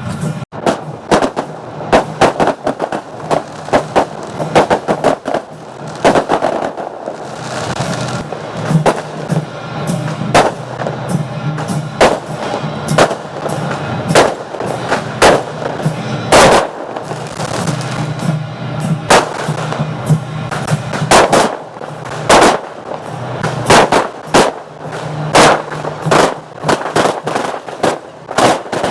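Fireworks going off: sharp bangs in a rapid, irregular series, with music playing underneath.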